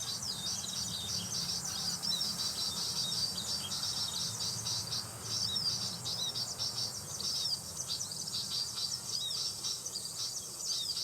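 Small birds chirping in a fast, continuous stream of high chirps, over a steady high insect buzz.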